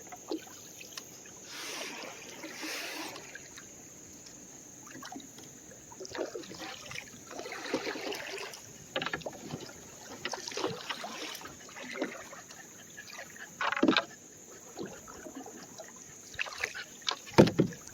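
Canoe being paddled: paddle strokes swishing through the water in several swells, with a few sharp knocks, the loudest a little before the end.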